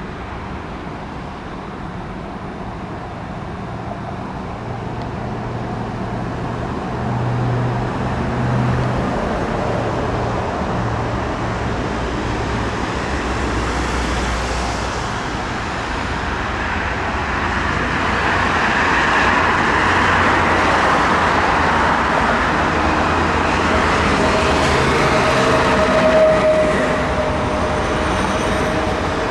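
Train approaching on the line, its running noise growing louder over the second half, with a steady whine near the end.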